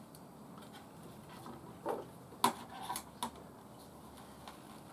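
A handful of light clicks and knocks from a metal straightedge and steel square being shifted and set down on a wooden board while marking it out, the loudest about halfway through, with quiet room tone between.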